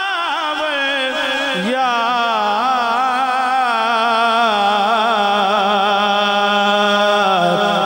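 Solo voice singing a slow devotional chant with wide vibrato and ornamented runs, settling into one long held note about halfway through.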